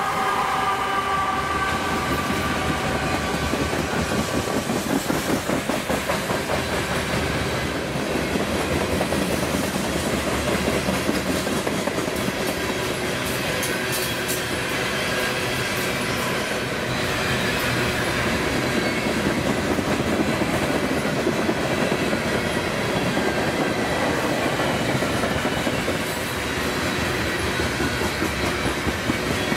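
CSX freight train cars rolling past, wheels clattering steadily over the rails. A few high ringing tones fade out over the first few seconds.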